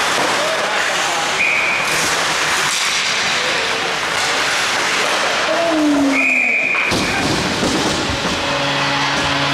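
Ice hockey game in a rink: steady noise of skates on ice and sticks, with players shouting, and two short, high blasts of the referee's whistle, about a second and a half in and again about six seconds in.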